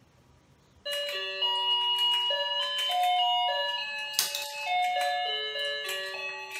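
Toy fishing game playing its tinny electronic tune: a simple melody of plain stepped notes, starting about a second in, with a few faint clicks.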